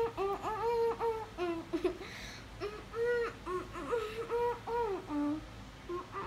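A girl's voice vocalising a wordless tune in a run of short, pitched notes that slide up and down.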